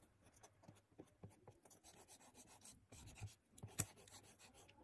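Faint rubbing of an eraser on paper in short strokes, rubbing out pencil lines, a little louder about three seconds in.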